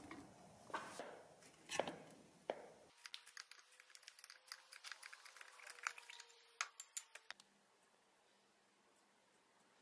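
A metal can being handled and its pressed-in lid worked off: a run of sharp clicks and metallic scrapes that stops about seven seconds in.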